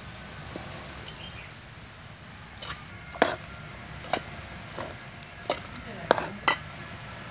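A metal ladle stirring chopped bottle gourd and goat intestine with chilli powder in a metal pot. It clinks sharply against the pot about seven times in the second half.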